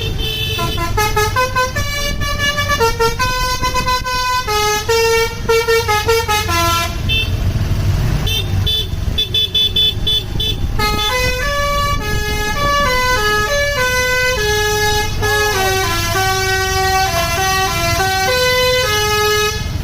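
Bus 'telolet basuri' multi-tone musical horn playing a quick tune of stepping horn notes, with the bus engine running underneath. The tune breaks off about seven seconds in and resumes a few seconds later.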